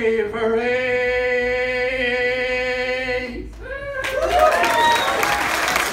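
Unaccompanied male singer holding the song's final note steadily for about three and a half seconds. A moment after the note ends, the audience breaks into applause and cheering.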